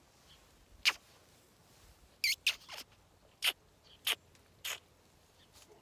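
A person giving a horse's muzzle a series of short, squeaky kisses, about seven in all, three of them in quick succession near the middle.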